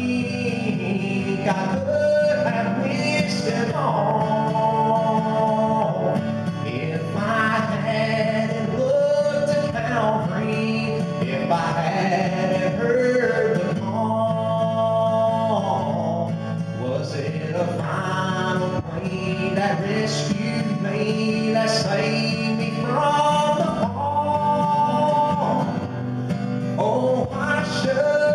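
A man singing a country gospel song, accompanied by acoustic guitar over a steady low backing.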